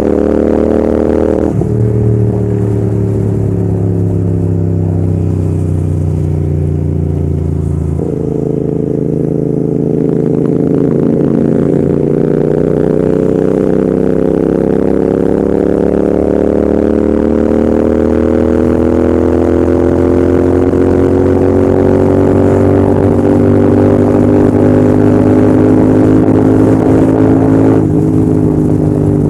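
Royal Enfield Continental GT650's 648 cc parallel-twin engine running hard under way, its exhaust note dropping in pitch twice, about a second and a half in and about eight seconds in, then rising slowly and steadily for some twenty seconds as the bike pulls toward top speed, easing a little near the end.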